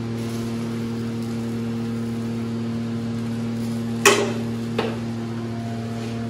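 A steady electric motor hum with a low pitch, with a sharp metallic clack about four seconds in and a lighter one just after, as metal tongs knock against the skewers on a charcoal grill.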